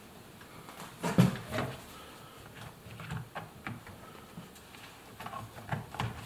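A rubber door seal being worked by hand onto the tub opening of an Indesit washing machine: scattered light knocks and clicks against the machine, with a louder knock about a second in.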